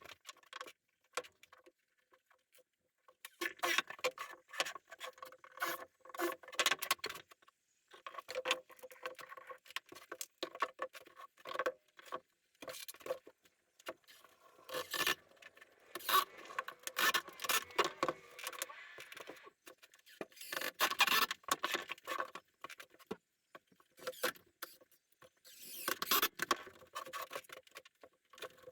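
Irregular small clicks, taps and scraping rustles of wood pieces and hand tools being handled, coming in clusters with short pauses.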